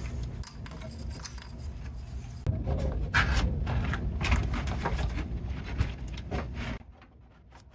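Irregular scraping, rubbing and light knocks of hands working on car parts and wiring, dropping away near the end.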